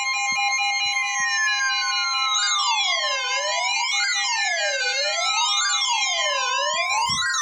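Several NOAA weather radio receivers sounding their warning alarms together: steady alert tones near 1 kHz with slow falling glides. About two and a half seconds in, a warbling siren alarm joins, sweeping up and down a little more than once a second. The alarms signal an incoming warning broadcast.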